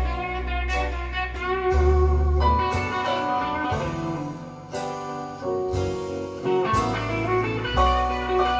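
Instrumental stretch of a blues song: plucked guitar notes over a deep, sustained bass line, with no singing.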